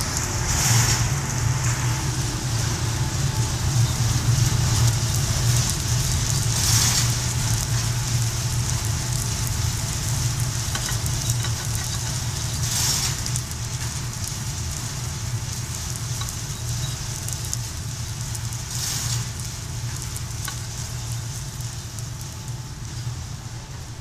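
Probat GG150 drum coffee roaster running with a steady low hum, the beans crackling through first crack. A short hiss comes about every six seconds, and the sound eases a little in the second half.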